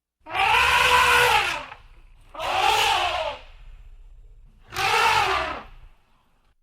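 Elephant trumpeting: three loud, brassy trumpet calls, each rising and then falling in pitch, with short pauses between them.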